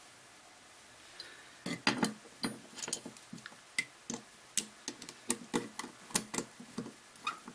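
Metal parts of a Stanley Handyman hand plane clicking and clinking as they are handled and fitted together. The sharp, irregular clicks start a couple of seconds in.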